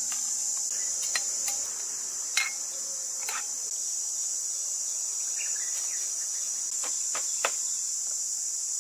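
Steady high-pitched insect chorus, with a few light clicks and knocks of cooking utensils against a pot and tableware.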